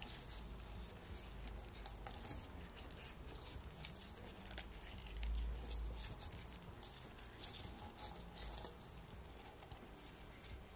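Hands rubbing seasoning into whole red bream in a stainless steel bowl: faint soft rubbing with scattered light clicks, and a soft low thud about halfway through.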